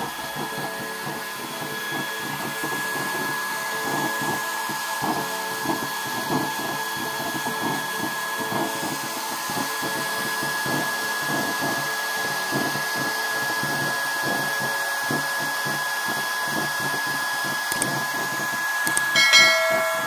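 Waste oil stove burner running on forced air from a small electric blower: a steady blower noise with a thin high whine, and the flame crackling irregularly throughout. Near the end, a short chiming sound effect.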